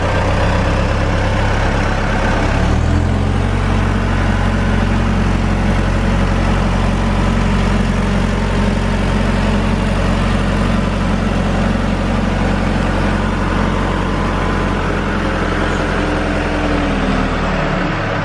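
SkyTrak telehandler's diesel engine running; about three seconds in it revs up to a higher steady speed to drive the boom lifting the work platform, then drops back toward idle near the end.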